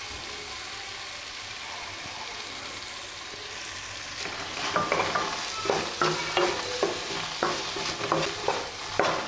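Onions and bell peppers sizzling in a nonstick kadai. From about halfway, a wooden spatula stirs and scrapes against the pan in quick strokes.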